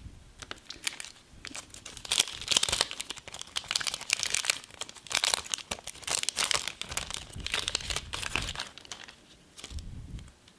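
Foil Yu-Gi-Oh booster pack being crinkled and torn open, an irregular run of crackling rustles, with a few soft handling bumps in the later seconds.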